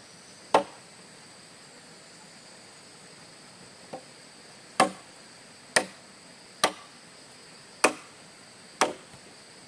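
Sharp chopping blows: one shortly after the start, a light tap near four seconds, then five strokes about a second apart. A steady high-pitched buzz of insects runs underneath.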